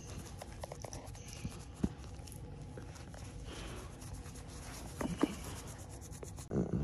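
A hand scratching and rubbing a dog's ear: a soft, continuous rustling with small clicks. About five seconds in, and again more loudly near the end, the dog makes short low grunting noises, the funny noises it makes when enjoying an ear scratch.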